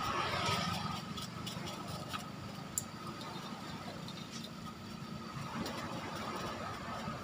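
Small electric fan running with a steady motor hum and whine, blowing dust off an exhaust fan motor; the hum fades somewhat in the middle and comes back near the end, with a few light clicks of handling.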